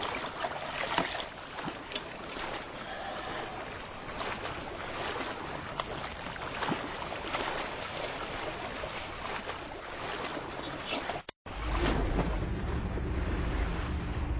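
Choppy sea water splashing and lapping around a small boat, with wind. About eleven seconds in it cuts off sharply and gives way to a steady low underwater rumble.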